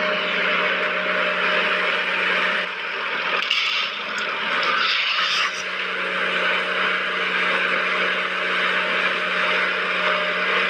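Small electric motor and gears of a DIY mini construction toy running steadily with a whirring whine. The whine dips and changes briefly a few seconds in, then runs on.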